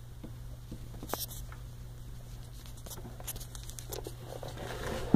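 Faint rustling and scattered light clicks of handling, over a steady low hum.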